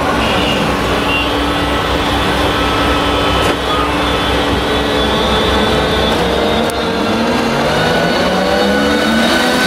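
Claas Jaguar 970 forage harvester's MAN V8 diesel engine running loudly as the machine drives past at close range, its note rising in pitch in the second half, with a high mechanical whine over it.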